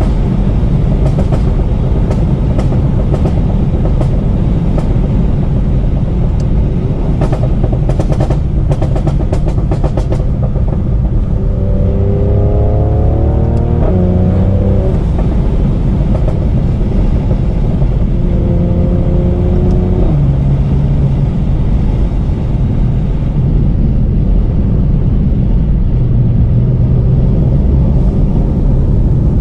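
A tuned Mercedes-AMG C43's twin-turbo V6 and exhaust under way, loud and steady. In the first third there is a run of sharp crackles and pops from the exhaust tune, thickest a few seconds before the middle. Later the revs climb, and the pitch drops off twice, about halfway and two-thirds of the way in.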